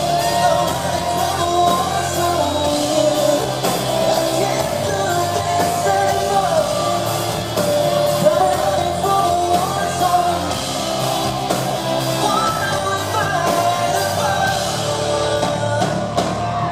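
Live pop-band performance: male lead vocals sung over drums and bass with a steady beat.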